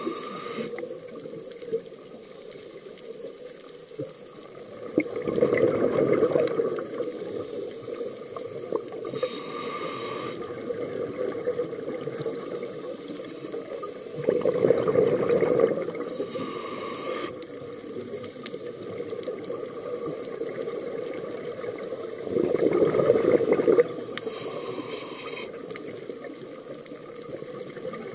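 Scuba diver breathing through a regulator, heard underwater: three rounds of bubbling exhaust about eight to nine seconds apart, with short high hisses of breath between them.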